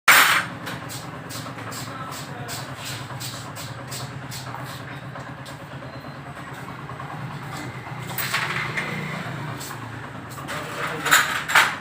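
Honda CD70 single-cylinder four-stroke engine idling steadily, with a light regular ticking about three times a second. There are a couple of brief louder bursts near the end.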